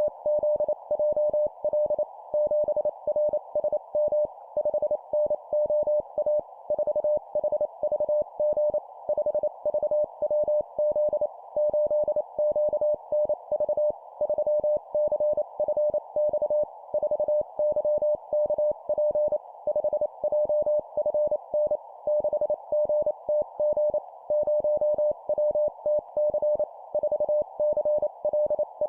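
Morse code (CW) tone of about 600 Hz keyed at 25 words per minute, sending groups of a number and three letters as short and long beeps with brief pauses between groups, over a faint hiss.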